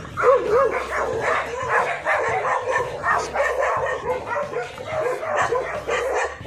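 A pit bull-type dog on a chain leash whining and yipping in a run of short, wavering high calls as it strains ahead.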